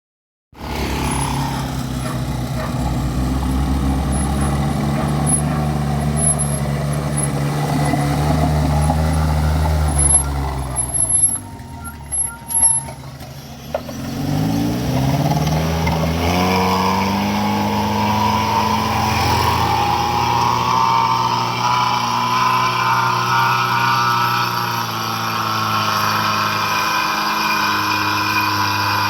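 Heavy vehicle's engine running steadily. Between about eleven and fourteen seconds in it drops away to a few short sharp sounds, then the engine climbs in pitch over a few seconds and settles at a higher steady note.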